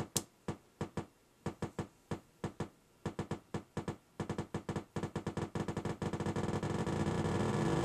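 Rob Hordijk Rungler's pulsed output: a train of sharp clicks, sparse and uneven at first, coming faster as the VCO A rate knob is turned up. Near the end the clicks run together into a continuous pitched buzz as the pulse rate reaches the audio range.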